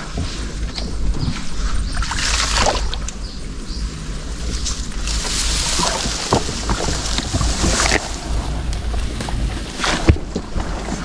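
Water splashing and sloshing in several bursts, with a few sharp knocks, as a fish trap is handled in floodwater, over a steady low rumble.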